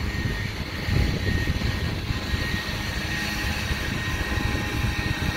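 Gusty severe-thunderstorm wind buffeting the microphone: a low, uneven rumble that surges and eases, with a faint steady high whine.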